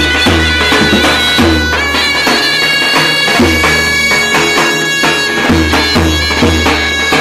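Two zurnas and a davul playing an improvised Roman havası: the dem zurna holds a steady drone while the lead zurna plays a shifting, ornamented melody over it. The davul's deep bass strokes fall in an uneven dance rhythm underneath.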